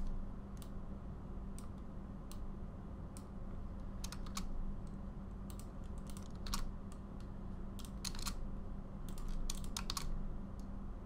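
Computer keyboard keystrokes, scattered single clicks and short runs of clicks, over a low steady hum.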